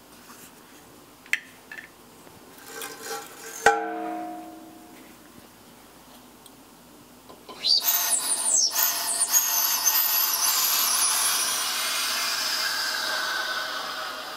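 A couple of small clicks and a ringing metallic clank as the metal transfer hose is handled, then from about eight seconds in a loud, steady hiss with whistling tones in it: liquid nitrogen rushing from a pressurised dewar through the transfer hose and boiling off violently as it hits the warm container. The hiss eases off slightly near the end.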